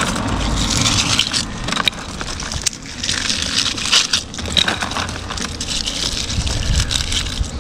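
Crunching, crackling handling noise with scattered small clicks as small plastic bags of coins, caked with dirt, are handled on a fishing magnet.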